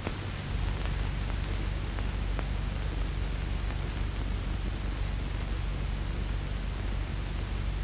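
Steady hiss and low hum of an old film soundtrack, with no dialogue or music. Two faint clicks come about two seconds in.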